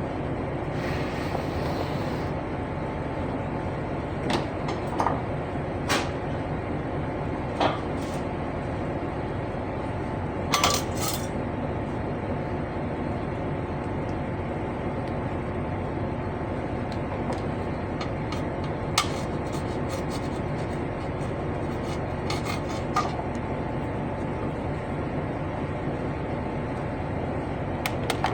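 Scattered light metallic clinks and taps, some in quick pairs, over a steady rushing background noise.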